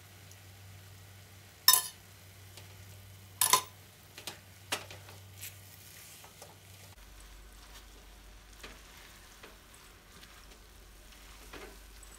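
A metal spoon clinks sharply twice, about two seconds in and again a second and a half later. Then a spatula stirs a thick potato, carrot and rice-vermicelli filling in a wok, with soft scrapes and taps over a faint sizzle, as a flour slurry is worked in to thicken it.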